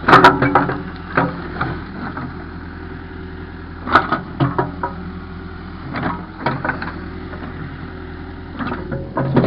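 Caterpillar backhoe's diesel engine running steadily while digging, with several clusters of sharp clanks and knocks from the machine at work.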